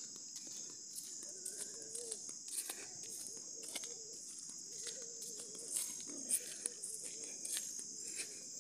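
Outdoor ambience: a steady high insect drone, a low wavering bird call repeated several times, and faint scattered rustles of footsteps in grass.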